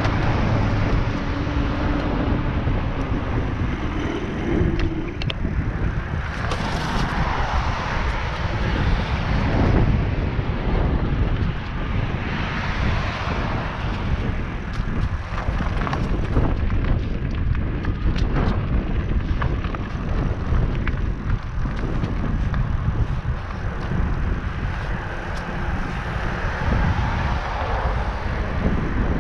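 Riding an e-bike along a trail: steady wind rush buffeting the camera microphone over tyre and trail rumble, with scattered small clicks and knocks. The electric motor whines faintly for the first few seconds, rising a little in pitch.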